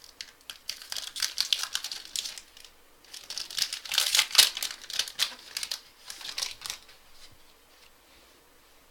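Wrapper of a trading-card pack being torn open and crinkled: a dense crackling that dies away about seven seconds in.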